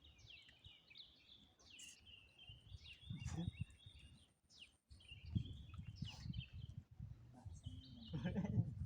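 Small birds chirping and trilling repeatedly over a low, steady outdoor rumble, with a brief break just before the middle.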